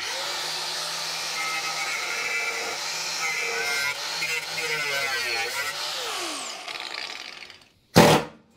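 Handheld angle grinder grinding off a weld on a steel handle bracket, running steadily. It is released about six seconds in and its pitch falls as the disc winds down. A short loud burst comes near the end.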